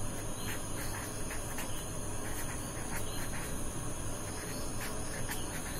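Quiet background noise with a steady high-pitched whine and faint, irregular light ticks.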